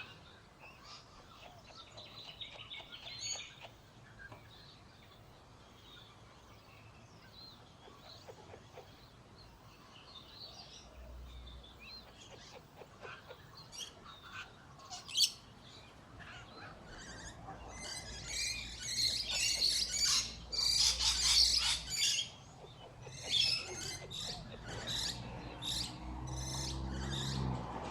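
Small animals chirping and squeaking in short high calls, scattered at first, then a dense, louder flurry about two-thirds of the way in.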